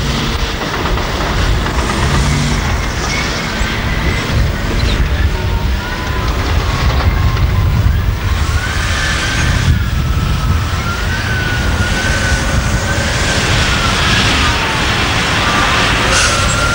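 Diesel engines of heavy earthmoving machines running, a deep steady rumble. From about five seconds in, a high whine wavers up and down in pitch over it.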